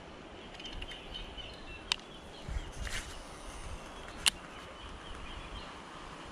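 Two sharp clicks from a baitcasting reel being handled, the second about two and a half seconds after the first, with a brief rustle between them and faint bird chirps.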